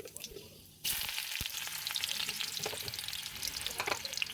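Food frying in hot oil in a pan, the sizzling crackle starting suddenly about a second in and carrying on steadily.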